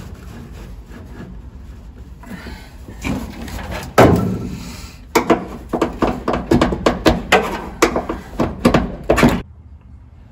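Old windshield rubber weatherstrip being pried and broken off a car's steel window frame with a hand tool: a sharp knock about four seconds in, then a quick run of clicks and snaps that cuts off just before the end.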